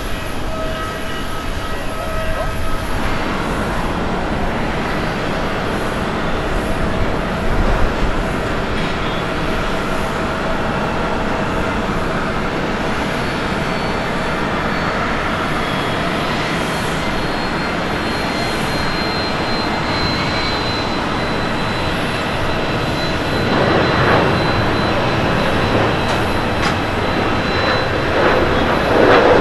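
Jet engines of a Boeing 737-800 at takeoff thrust: a steady roar through the takeoff roll with a thin high whine in the middle, getting louder near the end as the jet lifts off.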